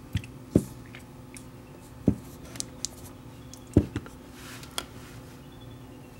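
A small bare circuit board handled by fingers and set against a workbench: a few sharp knocks and clicks, the loudest about half a second and nearly four seconds in. Under them runs a low steady hum.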